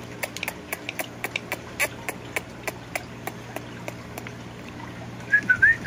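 An Indian ringneck parakeet's feet tapping and stepping on the sheet as it dances: light, irregular clicks about four a second that stop after about three and a half seconds. A short warbling whistle follows near the end.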